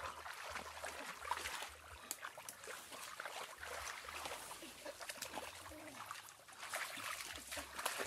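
Water splashing and trickling, with many small irregular splashes.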